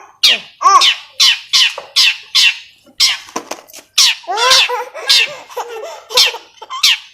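Long-tailed shrike (cendet) giving a rapid run of harsh, chattering calls that slide down in pitch, about two a second.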